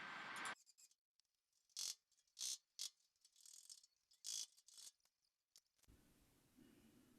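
A cutoff wheel grinding through sheet steel stops suddenly about half a second in. Then come several short, faint metallic rattles and scrapes, spaced irregularly, over near silence.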